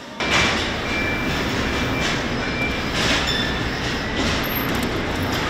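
Steady rumble and hiss of a moving vehicle, heard from inside, with a few short high squeaks.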